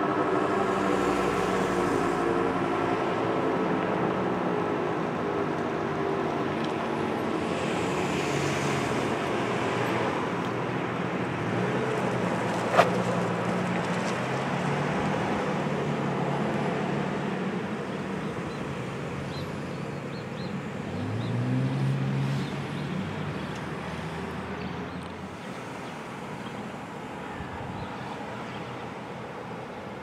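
Decot Red Arrow Model 12 outdoor warning siren winding down at the end of its test: its tone slides slowly lower in pitch and fades over about ten seconds, leaving traffic noise. About twenty seconds in, a vehicle passes with a rising engine note, and there is a single sharp click around the middle.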